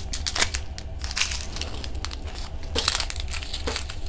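Small clear plastic bags of resin diamond-painting drills crinkling and crackling as they are picked up and shuffled around by hand, in irregular quick crackles.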